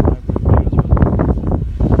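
Wind buffeting the microphone in uneven gusts of low, rough noise.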